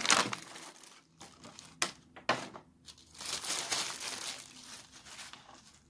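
Crinkly packaging being handled and unwrapped, in irregular rustling bursts, with a couple of sharp clicks about two seconds in.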